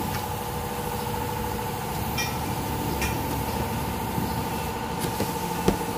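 Steady hum of a running motor or engine, holding one pitch throughout, with a few light clicks and scrapes of cardboard flaps being cut and pulled open and one sharp knock near the end.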